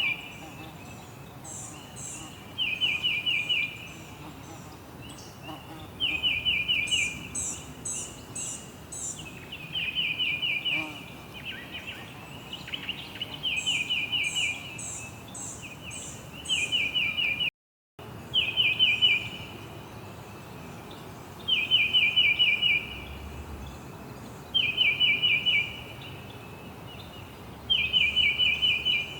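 A songbird repeating a short, fast trill of chirps about every three seconds, with fainter, higher chirps from other birds in some of the gaps, over a steady outdoor hiss. The sound drops out completely for a moment just past the middle.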